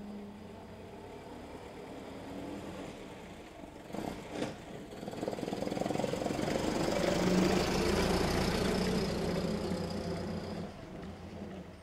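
1919 Chevrolet 490's overhead-valve four-cylinder engine running as the car drives by, growing louder to a peak just past the middle and then fading away. Two short sharp knocks come about four seconds in.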